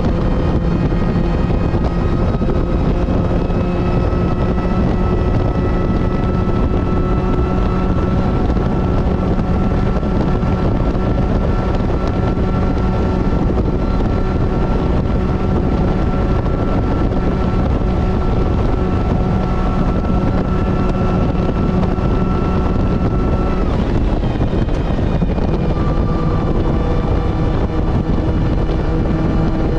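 Supercharged Mazda MX-5 NB engine running at steady revs, heard onboard at speed under heavy wind and road noise. About three-quarters of the way through, the engine note breaks off for a second and comes back slightly lower.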